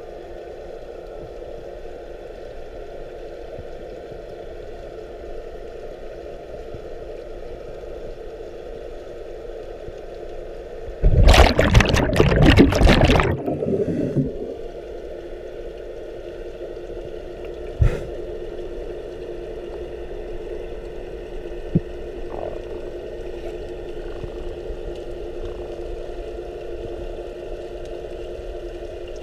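Underwater sound picked up through a diver's head-mounted GoPro: a steady hum, broken about 11 seconds in by a loud rush of scuba regulator exhaust bubbles lasting about two seconds as the diver breathes out.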